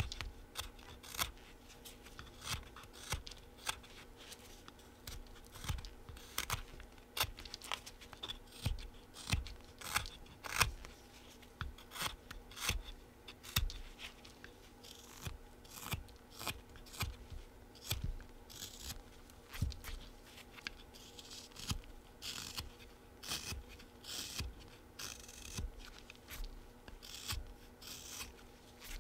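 Flexcut Whittlin' Jack pocketknife blade carving a small wooden bee body, slicing off shavings in short cuts about one to two a second while the body is rounded off.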